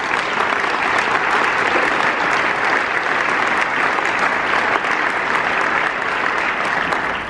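Large audience applauding, a dense patter of clapping that thins out near the end.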